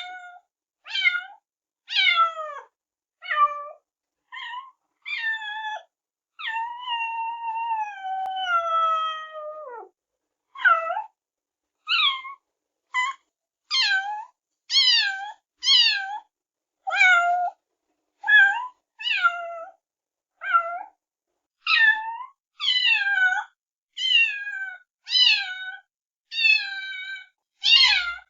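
Kittens meowing over and over, about one short high meow a second, most falling in pitch. About six seconds in comes one long drawn-out meow that slides down over three seconds or so.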